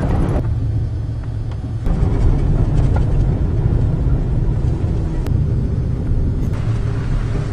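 Truck driving along a road, heard from inside the cab: a steady low engine and road drone, with a few faint clicks.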